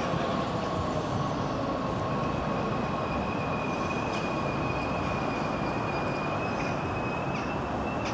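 NS Sprinter Light Train electric multiple unit running, a steady rumble with a high-pitched whine; a second, higher whine joins about two seconds in.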